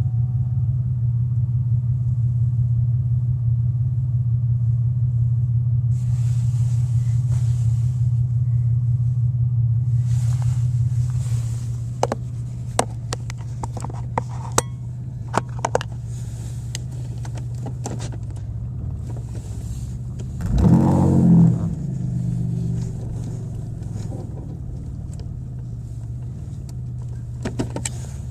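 2001 Pontiac Grand Am engine running with a loud, steady low drone, the big noise from the motor that the owner describes, which worsens as the engine speeds up. About 11 seconds in the drone eases off, a few sharp clicks follow, and about 20 seconds in a short rev rises and falls in pitch.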